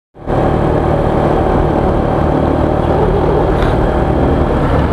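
A motorcycle riding steadily in city traffic: a constant engine hum with road and wind noise. The sound cuts in a fraction of a second after the start.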